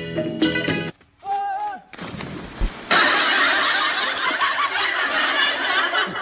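Water splashing and churning hard as people thrash about in a muddy canal, starting suddenly about three seconds in and staying loud and even. Before it, a second of music and a short gliding cry.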